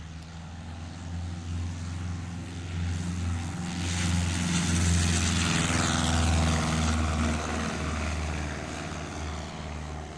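Cessna 152's four-cylinder Lycoming engine and propeller at full takeoff power on a touch-and-go. It grows louder as the plane rolls past, drops in pitch as it goes by about six seconds in, then fades as it lifts off and climbs away.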